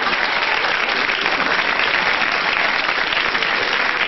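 Studio audience applauding steadily, a dense even clatter of many hands clapping.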